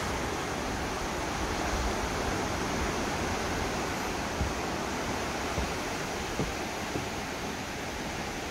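Steady rushing wash of ocean surf breaking around rocks in a cove below, with a few brief low bumps near the middle.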